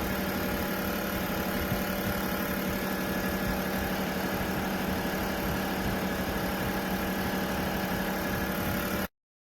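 Honeywell ThermaWave 6 ceramic space heater running, its fan motor giving a steady hum. The hum stops abruptly near the end.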